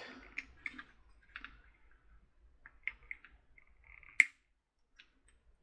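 Scattered small clicks and snips of hand tools trimming back the insulation on an LED lead. One sharper, louder click comes about four seconds in.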